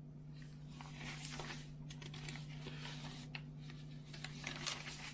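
Folded facsimile newspaper pages being handled and unfolded, crinkling and rustling with many small crackles, starting about half a second in. A steady low electrical hum runs underneath.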